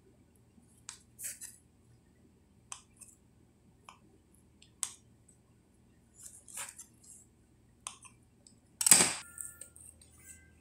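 Knife blade clicking and scraping against a glass cutting board as a ball of pizza dough is cut into pieces, in short scattered ticks. About nine seconds in comes one much louder clack with a brief ring.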